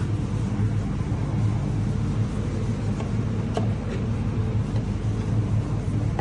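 Steady low mechanical hum of a commercial kitchen's ventilation running, with a faint tap about three and a half seconds in.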